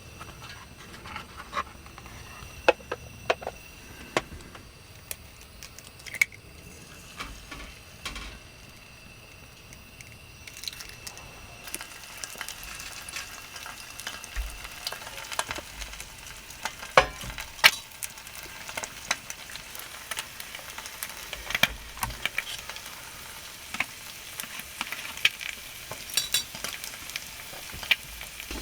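Food sizzling in a pan, starting a little under halfway through, with scattered clicks and knocks of utensils and dishes throughout.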